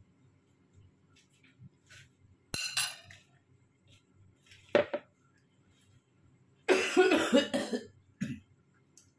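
A sharp knock about two and a half seconds in, the ladle against the steel cooking pot, then a man coughing: a short cough near the five-second mark and a longer, louder one with throat clearing at about seven seconds.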